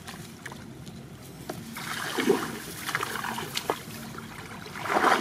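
Shallow muddy floodwater sloshing and splashing around the legs of a person wading. There are louder splashes about two seconds in and again near the end.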